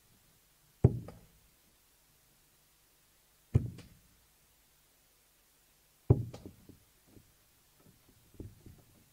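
Three steel-tip darts striking a bristle dartboard one after another, about two and a half seconds apart, each a sharp thud with a short rattle after it. A few fainter knocks come near the end.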